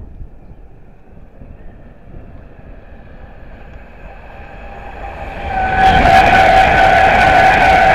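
Avanti West Coast express train approaching and running through at speed: a growing rush of wheel and air noise that turns loud about six seconds in, with a steady high whine over it.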